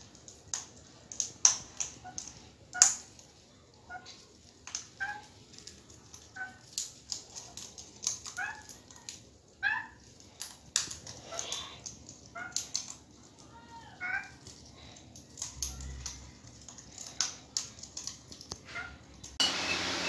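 Two African grey parrots cracking seeds from a hand in their beaks: a run of sharp, irregular clicks and crunches, with short soft squeaky calls between.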